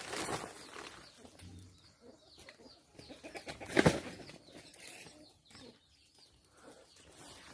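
Dry leaves and plant stems rustling as they are handled, with one short, sharp flurry about four seconds in, the loudest sound.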